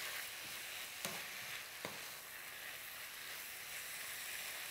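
Chopped kimchi and canned tuna sizzling in a hot frying pan as a wooden spatula stirs them, with a couple of light knocks of the spatula against the pan about one and two seconds in.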